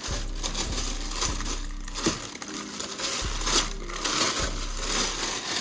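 Packaging crinkling and rustling as a slide is pulled out of its shoebox, with irregular louder crumples, over soft background music.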